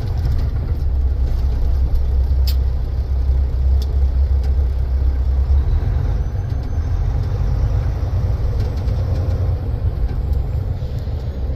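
Heavy diesel truck's engine and road noise heard from inside the cab while driving on a dirt road: a steady deep rumble that eases a little about halfway through, with a few light rattles.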